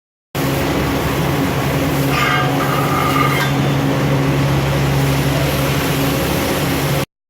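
Wire-feed (MIG or flux-core) welding arc sizzling steadily over a low shop hum, with a brief higher tone about two to three seconds in. It starts and stops abruptly.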